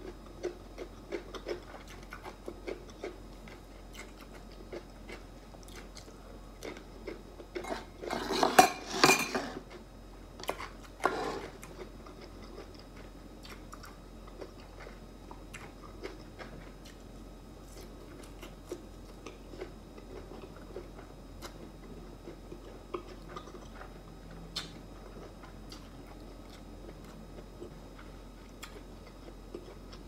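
Close-miked eating: chewing and small wet mouth clicks throughout. A loud burst of noise comes about eight seconds in, and a shorter one about eleven seconds in.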